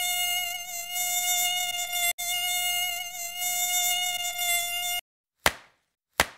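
Mosquito whine sound effect: a steady high buzz, broken for an instant about two seconds in, which cuts off about five seconds in. Two sharp hits follow, about three quarters of a second apart.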